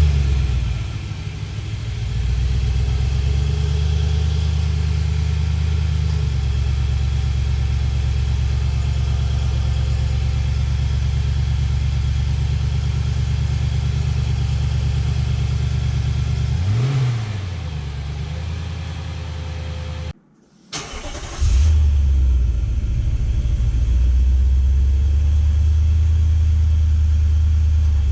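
Nissan Patrol Y62's V8 just after a cold start, settling into a steady high idle that drops to a lower idle about 17 seconds in. After a brief gap, a second cold start follows close to the exhaust outlet: the engine catches with a flare and settles into a steady idle.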